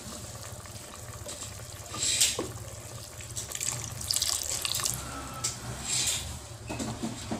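Pork blood being poured slowly into a pot of simmering pork broth and stirred in with a wooden spatula: liquid splashing and sloshing in the steel pot, with louder swishes about two, four and six seconds in, over a steady low hum.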